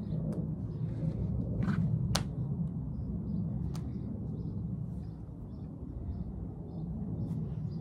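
Flour tortillas slapping, a few sharp slaps, the loudest about two seconds in, over a steady low rumble. Short high chirps, like small birds, come through the middle.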